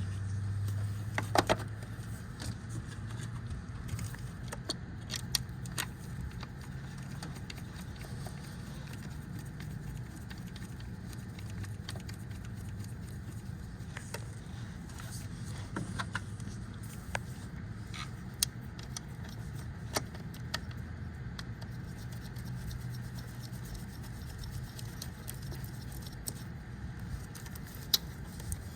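Scattered small clicks and clinks of hand work on an engine's ignition parts, coil connectors and parts being handled and snapped into place, over a steady low hum. The sharpest click comes about a second and a half in.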